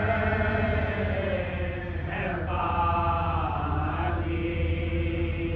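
Men's voices chanting a marsiya, the Urdu elegy of Muharram, in long held melodic notes through a microphone, the pitch of the line shifting about two seconds in.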